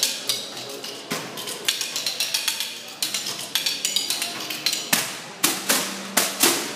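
Percussion ensemble playing a fast rhythmic passage of sharp strikes, with several loud accented hits near the end.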